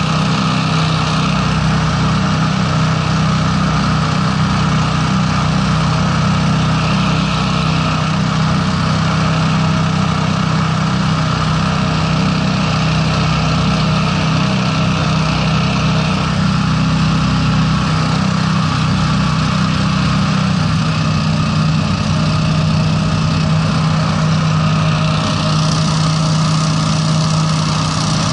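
Honda 690 V-twin engine of a Breeze 420 hovercraft running steadily at cruising speed, driving its caged thrust propeller. A brighter hiss comes in near the end.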